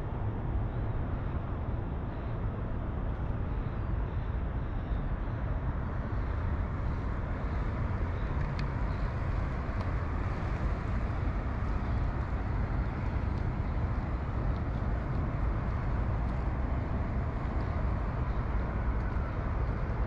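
Steady outdoor city background noise with a deep, even rumble and no single sound standing out.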